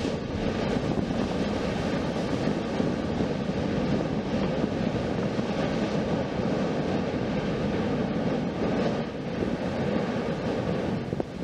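Ash-rich eruption from Mount Yasur's crater vent: a steady, loud rushing noise of ash jetting out just after an explosive burst, easing slightly near the end.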